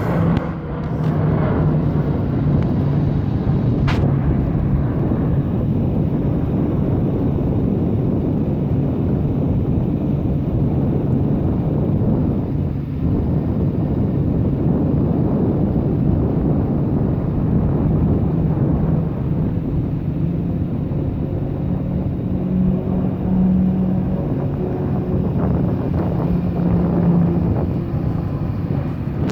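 Steady low engine rumble with faint droning tones, mixed with wind on the microphone.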